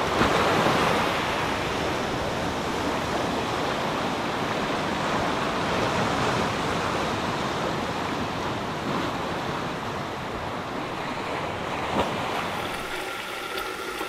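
Ocean waves washing steadily over rocks.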